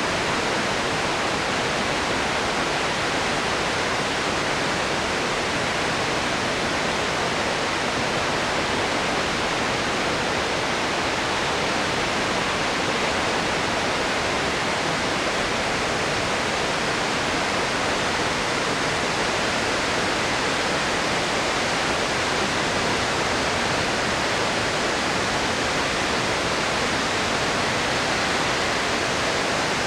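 Floodwater released from a concrete arch dam, about 200 cubic metres a second, pouring and crashing down in a loud, steady rush of water. It is a flood release after heavy typhoon rain.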